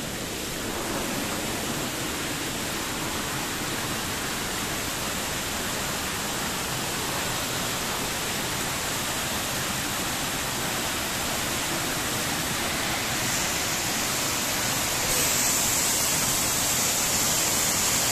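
Manchewe Falls' water rushing in a steady hiss, growing slowly louder and stepping up in level near the end as the falls come close.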